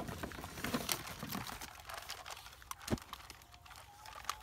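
Cardboard box and plastic packaging rustling and crinkling as a toy RC rock-crawler car is pulled out, with scattered small clicks and one sharp knock about three seconds in.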